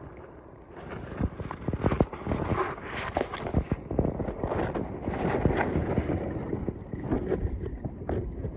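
Water sloshing and splashing around a phone being tested in water, with irregular knocks and bumps, getting louder about a second in.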